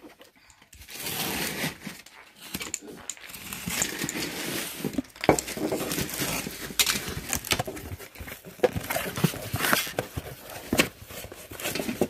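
Box cutter slicing the packing tape on a cardboard box, then the cardboard flaps pulled open and the contents handled, a run of scrapes, crackles and sharp clicks starting about a second in.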